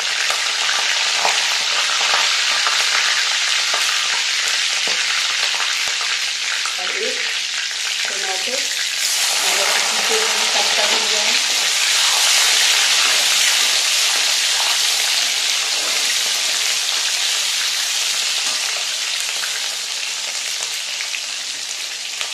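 Hot oil sizzling in a metal kadai as a cumin-fenugreek tempering and green chillies fry, with a steel spatula stirring. About nine seconds in the sizzle suddenly grows louder and brighter as chopped tomato goes into the oil.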